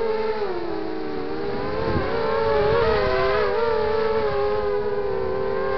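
Brushless motors and propellers of a 250-size FPV racing quadcopter (Emax 2300 kV motors) whining in flight. Several pitches rise and fall together as the throttle changes, with a swell of rushing air about two to three seconds in.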